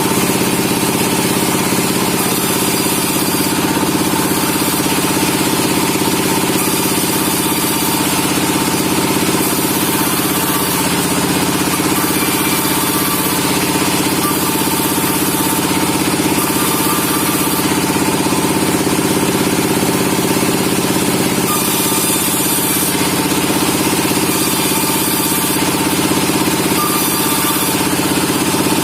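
Sawmill machinery running steadily: a continuous engine-like hum with a high hiss that swells and drops every second or two.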